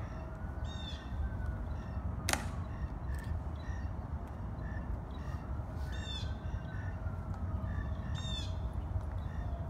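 A crow cawing three times over steady outdoor rumble, with a distant siren slowly wailing up and down and one sharp click about two seconds in.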